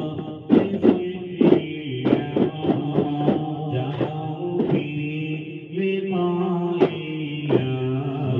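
A group of voices chanting a devotional refrain together, held on long steady notes, with about a dozen sharp percussive strikes at irregular spacing, most of them in the first half.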